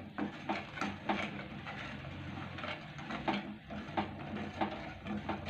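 Plastic spatula stirring thick custard milk in a stainless steel pot: soft, irregular scrapes and taps against the pan over a steady low hum.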